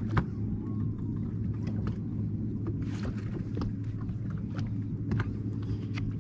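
Steady low hum of a boat's motor running, with a few light knocks through it.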